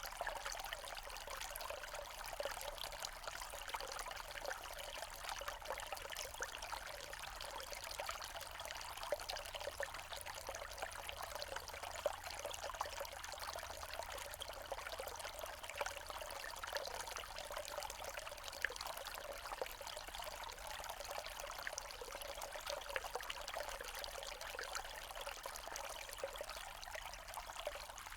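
Small forest stream trickling and splashing over rocks, a steady babbling with no pauses.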